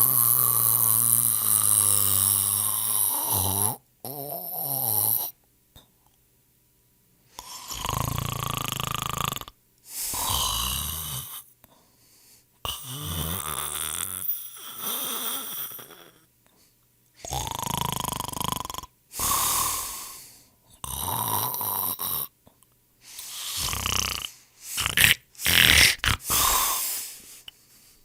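A person snoring: one long snore in the first few seconds, then a series of shorter snores of a second or two each, separated by brief silences, with sharper, shorter ones near the end.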